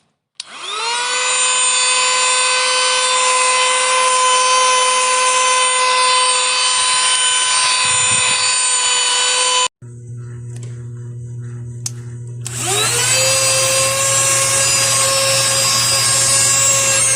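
Small handheld vacuum cleaner's motor switched on, spinning up within a second to a steady high-pitched whine. It cuts off suddenly about ten seconds in, a lower steady hum follows for a few seconds, and the whine spins up again about twelve and a half seconds in.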